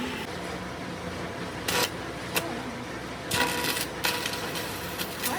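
Metal parts clinking, with two sharp clicks and then a short clatter near the middle, over a steady low workshop hum.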